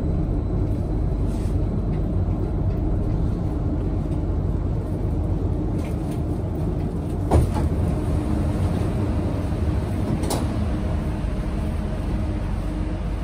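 Steady low rumble and hum inside a Minsk Metro car at a station, with a sharp clunk about seven seconds in as the sliding doors open and a fainter click about three seconds later.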